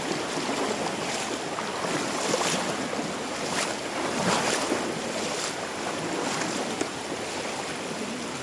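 Swift, shallow river rushing over rocks in a steady wash of water noise, with brief louder swells every second or so.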